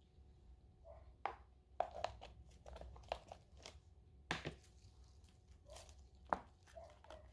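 Irregular sharp knocks and clicks of kitchen work, things being set down and handled, with the loudest knocks about four and six seconds in.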